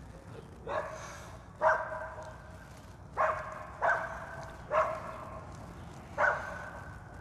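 A dog barking six times at uneven intervals, each bark sharp and pitched.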